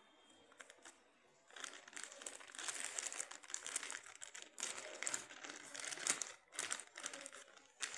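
Plastic courier bag crinkling as it is handled and pulled open by hand. It starts about a second and a half in and comes in irregular bursts with brief pauses.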